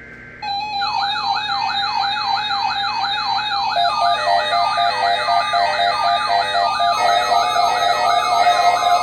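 Electronic warning alarm going off for the weekly NOAA Weather Radio alarm test: a steady tone with a fast wailing siren sweep over it, about three sweeps a second. More wailing tones join about 4 and 7 seconds in.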